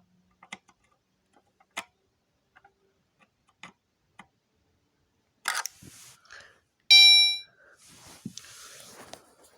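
Gentex Commander 3 fire alarm horn giving one loud, brief blast about seven seconds in, then cutting off suddenly; it was set to the wrong tone. Before it come a few faint clicks and some rustling, and rustling follows the blast.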